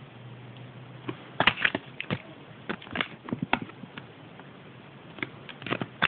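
Thin paper toy leaflet from a Kinder Surprise egg crinkling as it is unfolded and handled: irregular sharp crackles, a cluster a couple of seconds in and more near the end.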